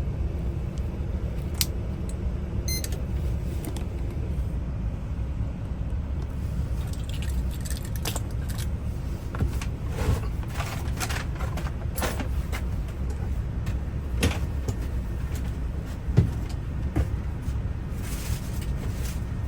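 Light metallic clicks and jingles of keys or small lock parts being handled, thickest in the second half, over a steady low rumble.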